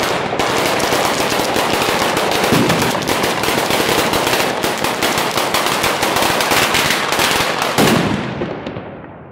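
Firecrackers going off in a rapid, continuous crackle of many sharp bangs per second, with a couple of heavier bangs mixed in. The volley stops about eight seconds in and dies away.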